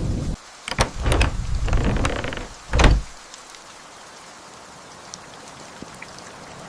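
Thunder rumbling and crackling, with a sharp crack near three seconds in, then cutting off abruptly to leave a steady patter of rain.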